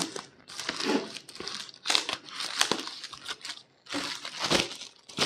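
Thin plastic courier mailer bag crinkling and tearing as hands pull its sealed top open, in several irregular rustling bursts.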